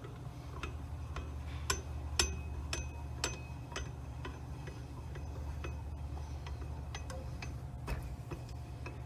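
Irregular sharp metallic clicks and clinks from the nut tool being slowly backed off the all-thread, letting the compressed Can-Am X3 primary clutch spring extend, over a steady low hum.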